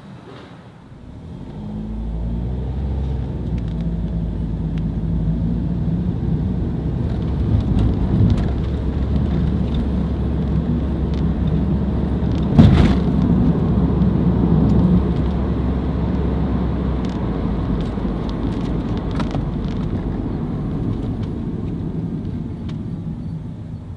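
Car driving: a steady engine and road rumble that builds in over the first couple of seconds, with one sharp knock about halfway through, fading out at the end.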